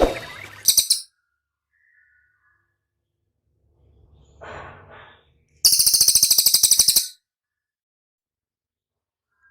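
Cililin songbird singing: a short burst of high notes near the start, then, about six seconds in, a loud, very fast, high-pitched rattling trill lasting about a second and a half, with silent gaps between the phrases.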